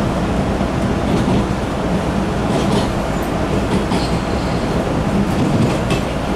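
MBTA Red Line subway car running at speed, heard from inside the car: a steady low rumble of wheels on track, with a few sharp clicks from the wheels in the second half and a brief faint high squeal about four seconds in.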